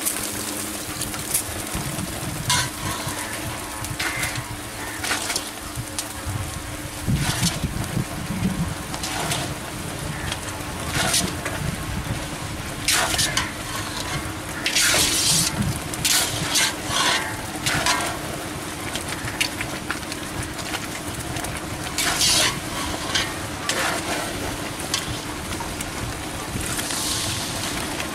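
Metal spatula and slotted ladle stirring boondi in hot sugar syrup in a large kadai, scraping against the pan in irregular strokes over a steady sizzle.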